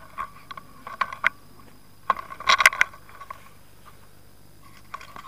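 Fishing reel on a feeder rod ratcheting in short bursts as a hooked fish is played, the loudest spell in the middle.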